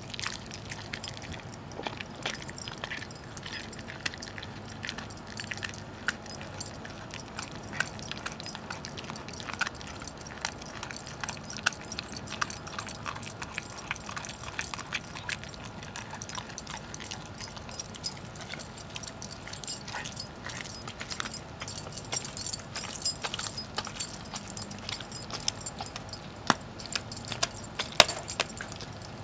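Greyhound gnawing and crunching a raw turkey leg, with irregular sharp crunches and clicks throughout and the metal tags on its collar jingling.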